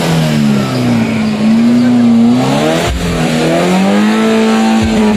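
A vehicle engine being revved up and down in slow sweeps. The pitch drops sharply with a short thud about three seconds in, then climbs again.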